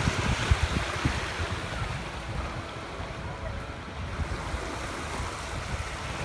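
Small waves lapping and washing over the sand at the water's edge, with wind buffeting the microphone, strongest in the first second.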